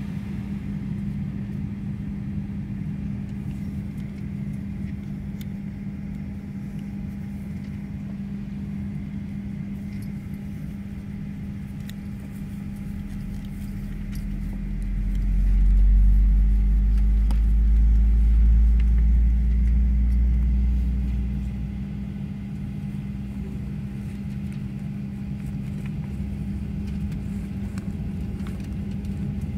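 Steady cabin drone inside a Boeing 737-900 on the ground, from its engines and air system, heard through the fuselage. A deep rumble swells up about halfway through, holds for several seconds, then fades back.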